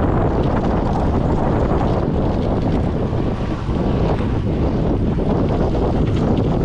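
Wind buffeting the microphone during a fast downhill ride, a steady low rumble with faint rattles and knocks from the rough trail.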